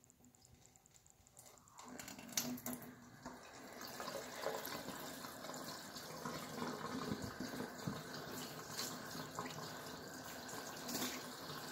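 Water starts running into a stainless steel kitchen sink about two seconds in and keeps running steadily, with a few small knocks.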